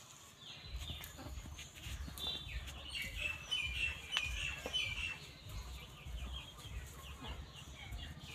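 Small birds chirping and twittering, busiest from about two to five seconds in, over a steady low rumble.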